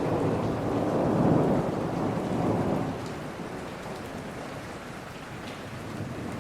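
Steady rain falling, with a low rumble of thunder that fades away about three seconds in.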